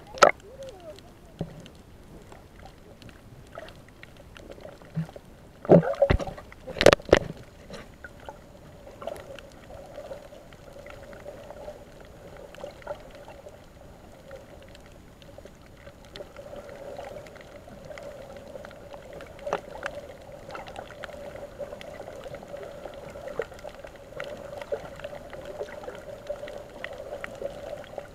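Muffled underwater sound picked up by a camera below the surface: a watery swish and gurgle with a steady hum underneath that grows stronger in the second half. A few loud knocks come about six to seven seconds in.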